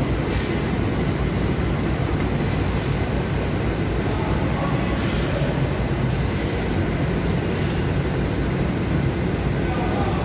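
Steady mechanical rumble with a hiss, like a machine running in the workshop, with a few faint light knocks of metal parts being handled.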